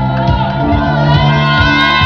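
Loud music playing, with a person's voice raised over it close to the microphone.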